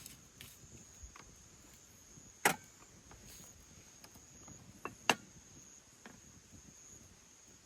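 Two sharp knocks, about two and a half seconds apart, with a few lighter clicks between, over a faint steady high-pitched whine.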